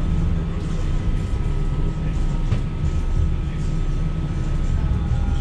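Low-floor tram running along the street, heard from inside the car: a steady low rumble from the wheels and running gear with a thin steady whine over it.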